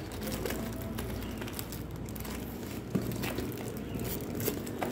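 Cardboard box and packing-tape wrapping being pried and pulled open by hand, a faint crackling and rustling with a sharp click about three seconds in and another near the end.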